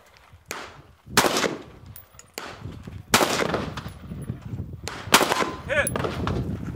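Shots from a short-barrelled 11.5-inch CAR-15-style carbine: four sharp cracks one to two seconds apart, the first quieter than the rest.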